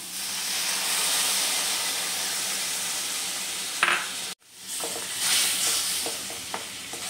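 Milk sizzling as it is poured into a hot stainless steel pan of crumbled paneer and powdered sugar, a steady hiss. About four seconds in, a wooden spatula starts stirring and scraping against the pan while the sizzle goes on.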